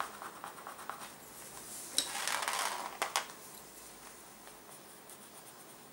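Wooden cuticle stick pressing and rubbing on a thin sheet of gold embossing foil: a sharp tick about two seconds in, about a second of scratchy rubbing, another tick, then faint.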